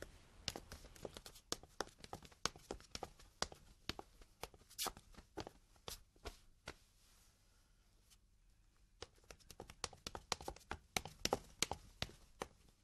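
Footsteps of several people walking on a hard hospital floor, a run of irregular sharp clicks that thins out for a couple of seconds past the middle and picks up again near the end.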